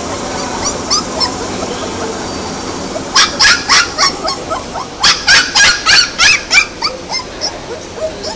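Several young puppies whining and yelping in short, high-pitched cries, with a loud run of yelps about three seconds in and a faster string of them around five to six and a half seconds.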